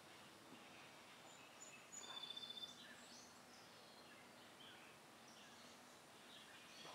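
Faint birdsong over near silence: scattered high chirps and one short, rapid trill about two seconds in.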